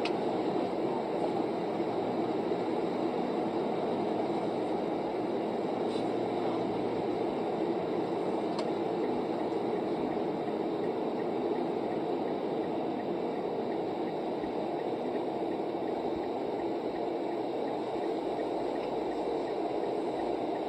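Steady road and engine noise of a moving car heard from inside the cabin, with a couple of faint ticks.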